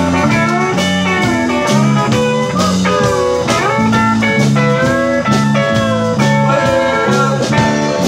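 Live country band playing an instrumental passage: an electric lead guitar line with notes that bend up and down, over acoustic guitar, electric bass and drums keeping a steady rhythm.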